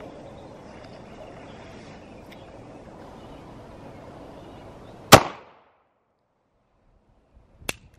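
A single Beretta M9A4 9 mm pistol shot firing 115-grain ball, a sharp crack about five seconds in, over steady background noise. A smaller sharp click comes near the end.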